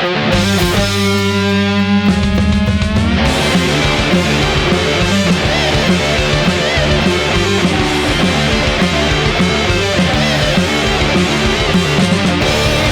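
Stoner rock band recording: heavy electric guitars, bass and drums. A sustained chord rings for the first few seconds, then the full band comes back in with a riff about three seconds in.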